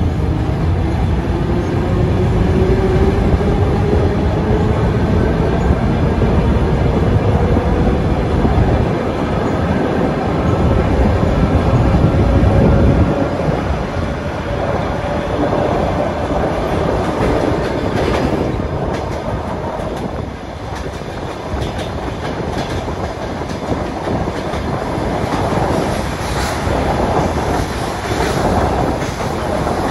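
Train running through a station: a whine rises steadily in pitch over roughly the first twelve seconds over a heavy rumble. The rumble then eases, and in the later part the wheels click repeatedly over the rail joints.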